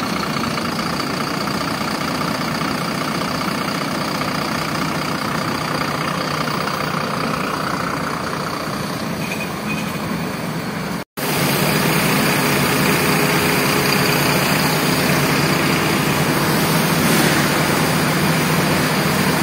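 City bus diesel engine idling steadily. After a brief cut about eleven seconds in, a bus engine idles louder, with more hiss on top.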